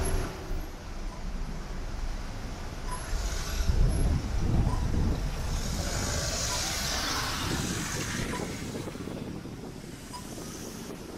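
Street traffic: a vehicle's low engine rumble passing, loudest about four seconds in, then a hiss about six to eight seconds in, easing off towards the end.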